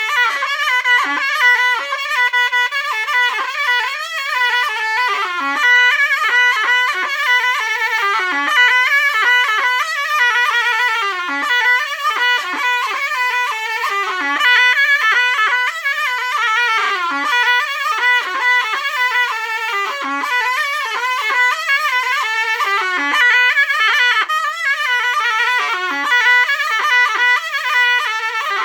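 Zurna playing a fast, heavily ornamented Turkish folk melody, its phrases repeatedly sliding down at the ends. No drum beat is heard under it.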